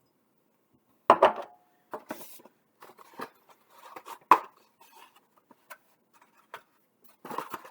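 Kitchen bowls and utensils clinking and knocking as they are handled and set down on a counter. There is a sharp knock about a second in with a brief ring, then a string of lighter clatters, and a louder knock partway through.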